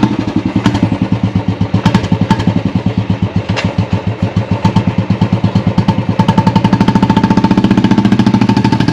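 A small engine running with a fast, even pulsing beat that quickens slightly in the second half, cut in abruptly between music.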